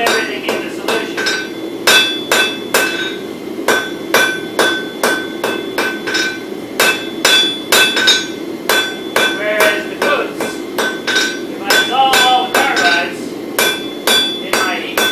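Hand hammer forging a red-hot bar of wootz crucible steel on an anvil: a steady run of blows at about two to three a second, each with a short metallic ring.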